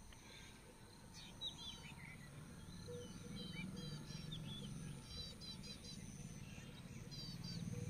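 Faint bird chirps and twitters, some in quick runs of three or four notes, over a low steady background rumble.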